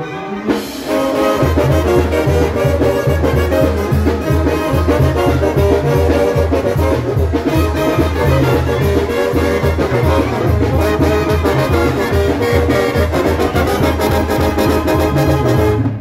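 Sinaloan-style banda playing live, trombones and trumpets carrying the melody over a steady bass beat that comes in about a second and a half in.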